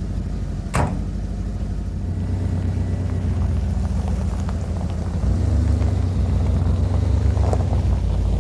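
An old van's engine running with a steady low rumble after sitting unused for months. The rumble grows louder about five seconds in. There is one sharp click about a second in.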